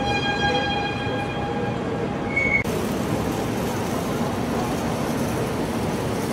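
A model vehicle's electronic sound-module horn sounds one steady, high tone for about two and a half seconds, ending with a brief higher beep. The sound then cuts abruptly to the steady background noise of a busy hall.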